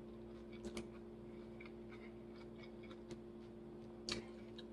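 Faint eating sounds while chewing salad: a few soft clicks, the clearest near the end, over a steady low hum.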